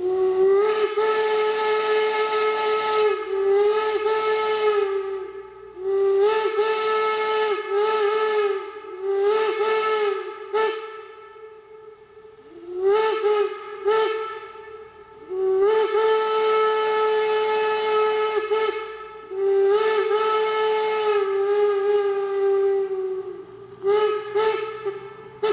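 Shay steam locomotive's whistle blown in a long series of blasts, some held for several seconds and some short, with brief dips in pitch as the whistle valve is worked, over a hiss of escaping steam.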